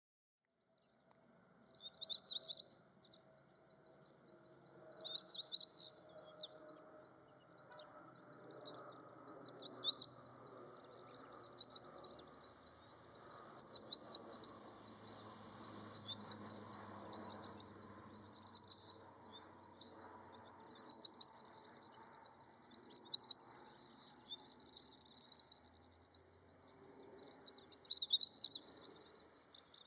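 A flock of long-tailed rosefinches calling: short, high chirps in clusters every second or two, over faint low background noise.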